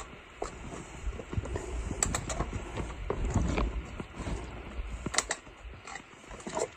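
Irregular clicks, taps and scrapes of trekking poles and boots on rock boulders during a scramble, with a low rumble of movement underneath.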